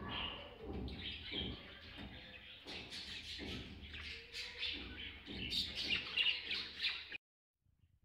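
A flock of budgerigars chattering and chirping busily, with many overlapping calls. The sound cuts off suddenly about seven seconds in.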